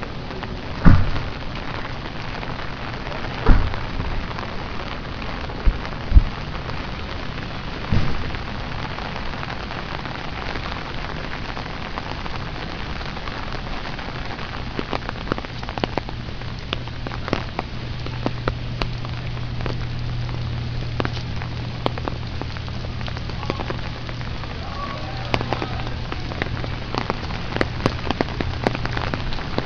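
Rain falling and dripping onto wet paving: a steady hiss with many sharp drip ticks, more of them in the second half. A few loud thumps come in the first several seconds, and a low steady hum comes in about halfway through.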